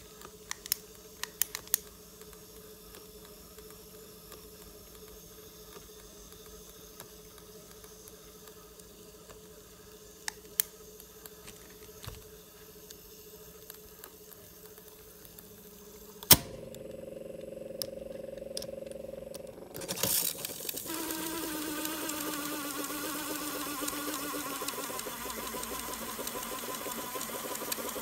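Grundig CB 100/E cassette tape drive running with an opened cassette: a quiet steady motor hum with a few light clicks. About halfway through, a loud click from a key starts a louder steady whir. A few seconds later another click brings a louder, wavering whir as the tape winds fast onto the reels.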